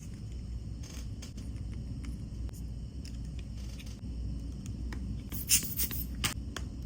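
Small clicks and scrapes of hand work on a phone, with a quick cluster of sharp clicks about five and a half seconds in, over a steady low rumble.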